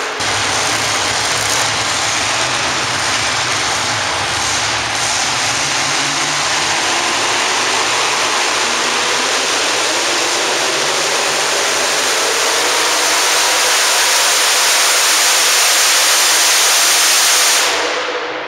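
Super modified four-wheel-drive pulling truck's engine running at full throttle during a pull, a loud, steady roar that fades away near the end.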